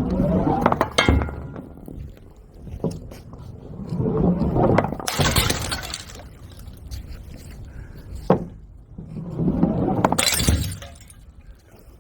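Balloons popping: three loud, crackling bursts a few seconds apart, with a few sharp single snaps between them.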